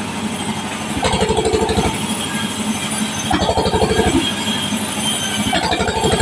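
Sawmill saw running as a timber plank is fed through it. A throb swells for about a second, roughly every two seconds.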